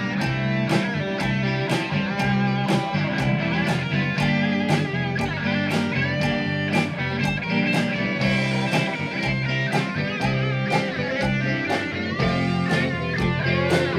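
Band playing blues-rock: electric guitar over bass guitar and drums, with a steady beat.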